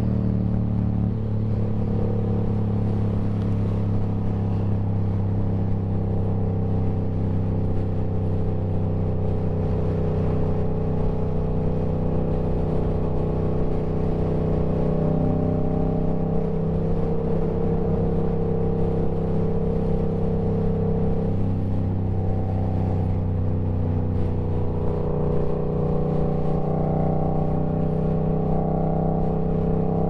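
Yamaha R7's 689 cc parallel-twin engine and exhaust running at a steady highway cruise, the engine note holding nearly constant with small rises and dips in pitch.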